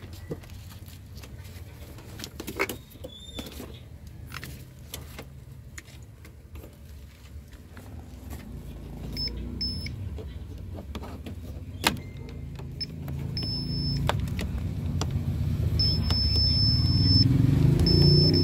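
Suzuki APV four-cylinder engine cranking on its starter without catching, growing louder over the second half, with a thin high tone that comes and goes and a sharp click partway through. It cranks but won't run because the engine computer loses its power supply while cranking.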